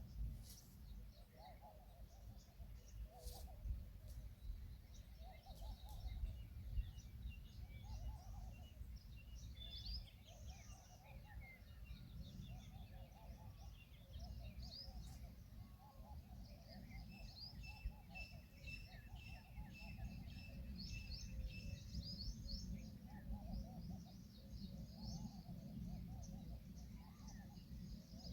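Small birds chirping and twittering, with a lower call repeated every second or two, over a steady low rumble.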